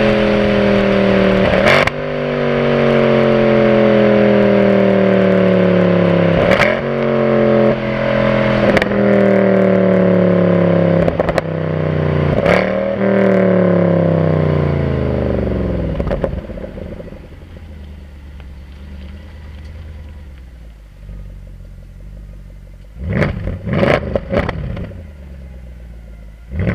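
Mercedes C63 AMG V8 exhaust at the tailpipes, its note falling steadily as the car slows, with several sharp cracks on the overrun. About two-thirds in it settles to a low idle rumble, and near the end the engine is blipped three times in quick succession.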